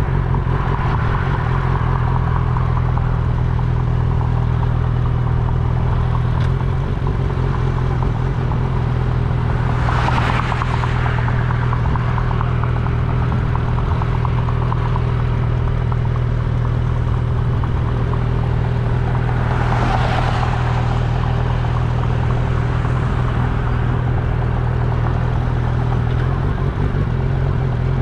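Kawasaki Ninja ZX-10R's inline-four engine running at a steady cruise, heard from the rider's seat along with road and wind noise. Twice, about ten seconds apart, a brief rushing swell of noise rises and fades.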